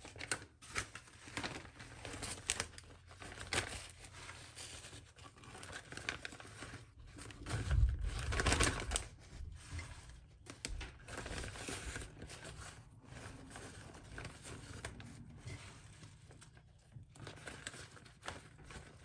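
Plastic quart-size Ziploc freezer bag crinkling and rustling as handfuls of oiled basil leaves are pushed into it, in irregular crackles and soft clicks. A louder stretch of handling with a dull bump comes about eight seconds in.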